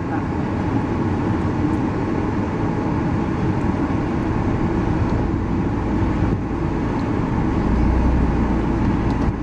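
Steady road and engine noise heard inside a moving car's cabin, with the low rumble swelling about eight seconds in.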